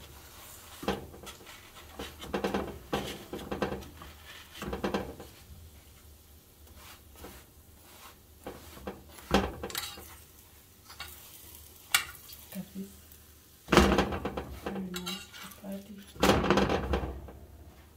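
A metal utensil scraping and tapping on a flat frying pan as a chapati is pressed and worked loose, with two louder clatters in the last few seconds as it is lifted from the pan.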